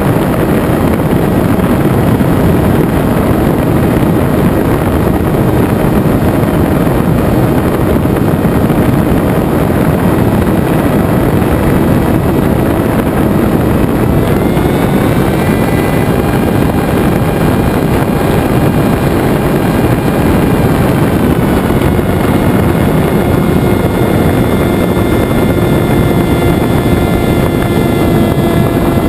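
Electric motor and propeller of an RC flying wing whining in flight under heavy wind rush on the airframe, as heard from an onboard camera. The whine rises in pitch about halfway through and shifts again later as the throttle changes.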